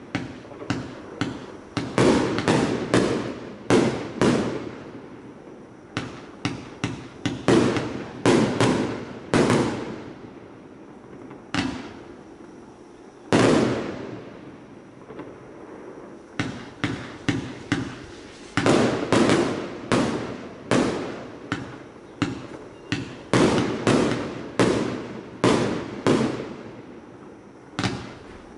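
A 1.2-inch, 100-shot compound firework cake firing: a long run of sharp bangs as the shots burst overhead, each followed by a short fading tail. The bangs come in quick clusters of several at a time, with brief lulls of one to three seconds between clusters.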